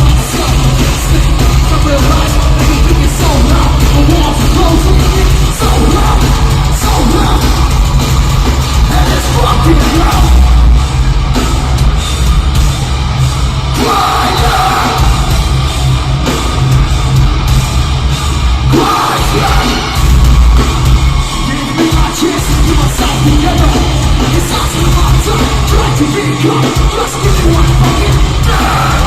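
Live nu-metal band playing loud and distorted, with a heavy low end, and a singer yelling and singing over it, heard through the venue's PA.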